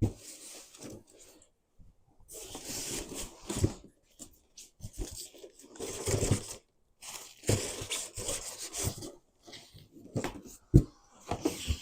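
Packaging being handled: bursts of scratchy rustling and rubbing, with a couple of sharp knocks near the end.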